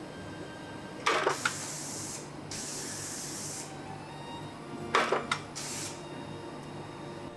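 Small foot-operated press punching fountain-pen nib blanks from sheet metal: two strokes, about a second in and about five seconds in, each a quick clatter of metal strikes followed by a hiss of air.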